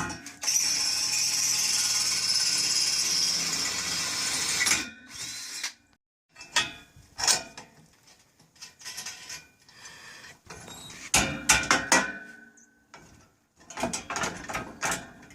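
A power drill runs steadily for about four seconds, then stops. Scattered clicks, knocks and a ringing metal clank follow.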